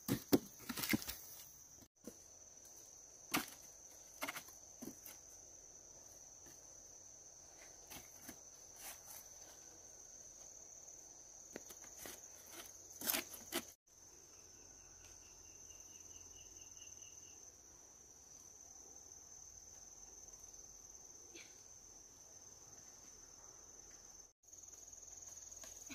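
Insects trilling steadily at one high pitch, with scattered light knocks and rustles in the first half. A short fast ticking series comes a little past the middle.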